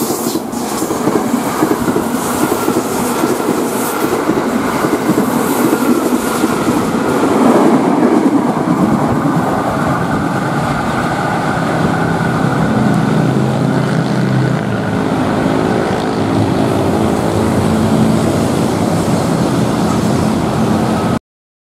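KAI Commuter electric trains passing close by at speed, with a loud rumble and wheels clattering on the rails. In the second half, steady humming tones join the noise as another commuter train approaches. The sound cuts off abruptly near the end.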